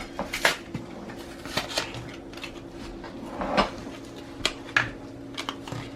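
A capuchin monkey handling and picking at toy packaging to open it: a string of irregular crinkles and clicks, over a faint steady low hum.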